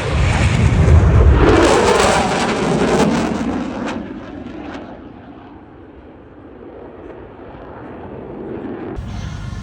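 Navy Blue Angels F/A-18 Super Hornet jets making a loud low pass. The jet roar swells twice in quick succession, then fades into a distant rumble.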